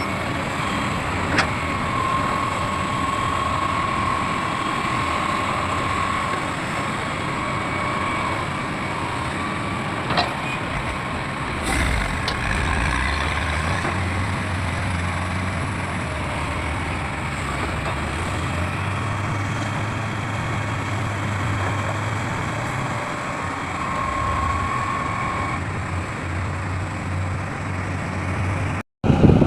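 Heavy diesel machinery, an excavator and dump trucks, running steadily, with a few sharp knocks and a faint whine that comes and goes. The low engine note grows stronger about halfway through, and the sound cuts out for a moment near the end.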